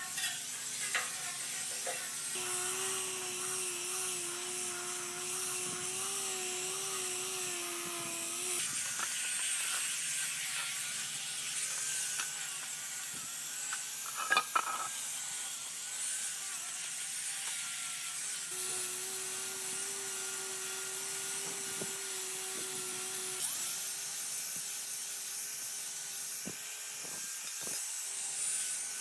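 A small electric power tool's motor runs in spells of several seconds with a steady hum, over workshop scraping and hiss. A sharp knock comes about halfway through.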